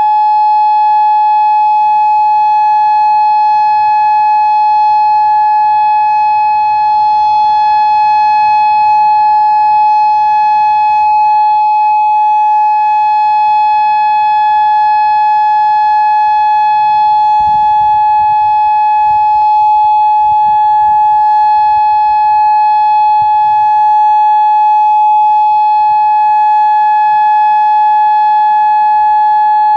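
Federal Signal Modulator II 3012B electronic outdoor warning siren sounding its steady alert signal: one loud, unbroken tone held at a fixed pitch, with no rise or fall.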